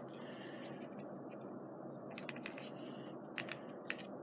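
Quiet steady room hum with a few faint, short ticks and taps, a couple about two seconds in and several more near the end, from paper and craft supplies being handled.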